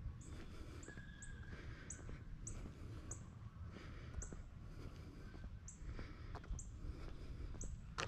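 Footsteps on a trail, a short crunch about every half second, over a steady low wind rumble on the microphone.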